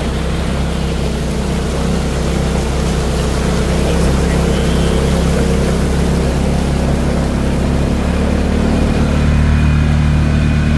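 Side-by-side UTV engine running steadily under way, its pitch and loudness rising a little near the end as it picks up speed.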